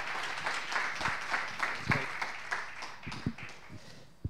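Audience applauding with many overlapping hand claps, thinning and fading out over the last couple of seconds.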